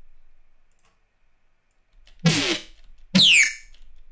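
Short notes from a Serum software-synthesizer bass patch, played about a second apart after a quiet first half: three short stabs, the last two with a falling sweep in their upper tones.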